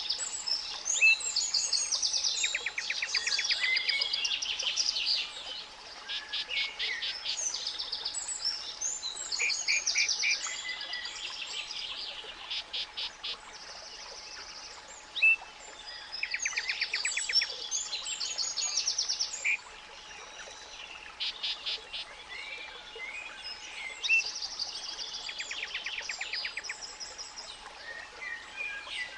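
Several birds singing and chirping over one another, with frequent rapid trills and a few sharp single chirps, over a faint steady pure tone at 852 Hz.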